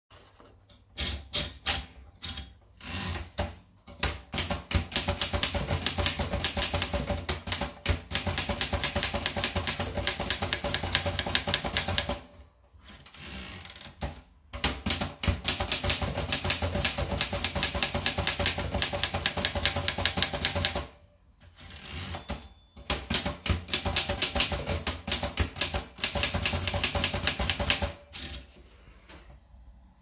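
Remington Model 5 De Luxe portable manual typewriter being typed on: rapid key and typebar strikes in three runs, broken by two short pauses, with scattered clicks in the first few seconds.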